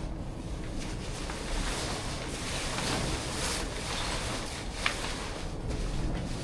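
Wind buffeting the microphone: a steady low rushing noise, with one short sharp click about five seconds in.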